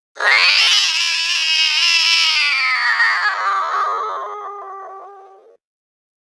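Angry cat yowl played back slowed down: one long drawn-out call that falls slowly in pitch, turns rough and pulsing near the end, and cuts off suddenly.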